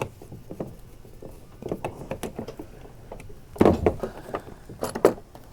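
Handling noises from work on a kayak's rudder steering lines and plastic steering parts: scattered small clicks and taps, with two louder knocks about three and a half and five seconds in.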